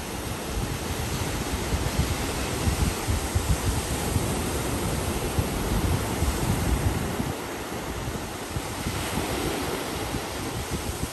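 Small surf breaking and washing up a sandy beach in a steady hiss. Wind buffets the microphone in gusts through the first seven seconds or so, then eases.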